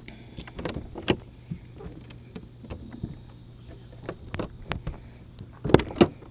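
Scattered clicks, knocks and rubbing as the trunk of a Honda Gold Wing GL1800 trike is unlatched and lifted open, with the camera resting against the painted body; a few louder knocks come near the end.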